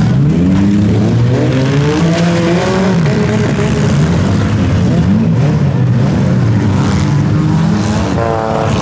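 Several compact demolition-derby cars' engines running loud, their pitch rising and falling repeatedly as they rev, over a steady din of engine and tyre noise.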